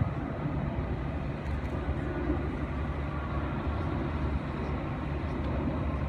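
DC-10 very large air tanker's jet engines, a steady distant rumble as the plane flies past overhead.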